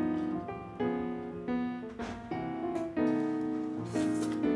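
Background piano music: a run of struck chords and notes, a new one about every half second to a second.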